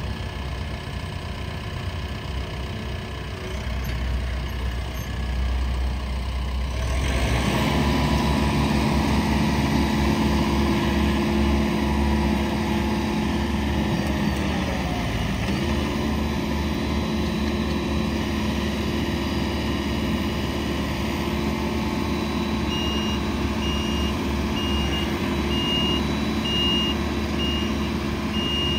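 TYM T754C tractor's diesel engine running as the front loader works a dirt pile. It revs up about a quarter of the way in and briefly drags down in pitch near the middle as the bucket pushes into the pile, then recovers. Over the last few seconds a reversing alarm beeps about once a second.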